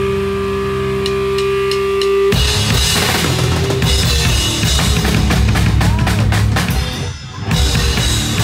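Death metal band playing live, heard close to the drum kit. A held amplified note rings with low hum and a few drum taps. About two seconds in, the full band crashes in with rapid drum hits and distorted guitars. The band stops briefly near the end and then comes back in.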